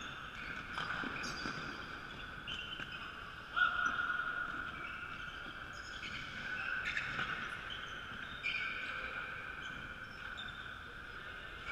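Athletic shoes squeaking in short, high-pitched chirps on a wooden sports-hall floor as players run and cut, with one sharp thump about three and a half seconds in.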